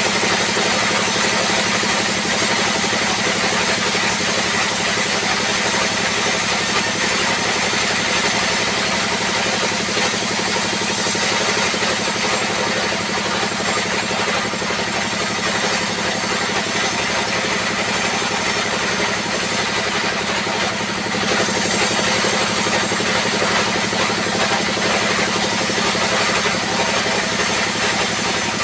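Diesel-driven circular sawmill running steadily while logs are ripped into planks, the engine's drone under the saw's high-pitched cutting noise. The high cutting sound breaks off briefly twice, between cuts.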